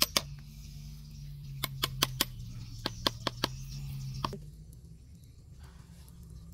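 Bamboo tube roasting over an open wood fire, crackling with sharp irregular pops. About four seconds in the crackling stops, and a quieter rustle of grass follows as the grass plug is pulled from the tube's mouth.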